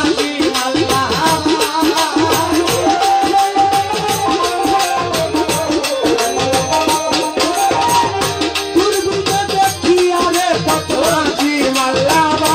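Bengali Baul folk music: a wavering, ornamented melody over fast hand-drum strokes and steady jingling percussion.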